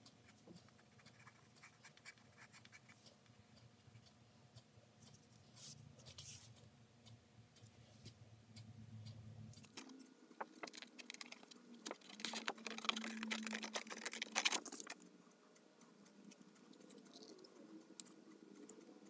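Faint pencil scratching and paper handling, then scissors cutting through thin cardboard: a run of snips and rustling that starts about halfway through and stops about five seconds later.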